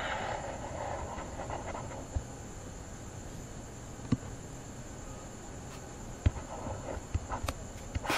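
Handwriting input on a computer during a screen-recorded lesson: a few sharp clicks over a faint steady hiss, with a brief rushing noise in the first couple of seconds.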